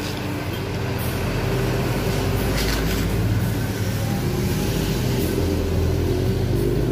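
Diesel engine of a Hino intercity coach pulling away from a stop: a steady low engine drone.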